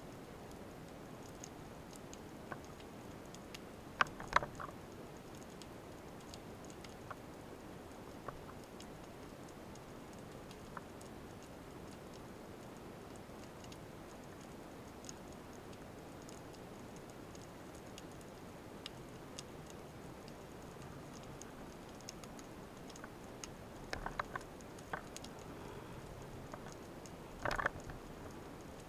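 Underwater ambience picked up by a camera in its housing: a steady low hiss of the sea with scattered faint ticks and clicks, and a few louder clusters of clicks about four seconds in and again near the end.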